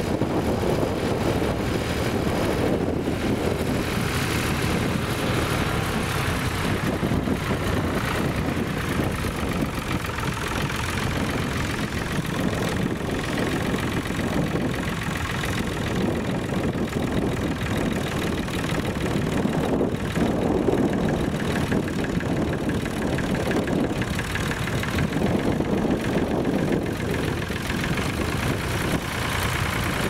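Vintage diesel tractor engines running steadily as they pull ploughs, with wind rumbling on the microphone.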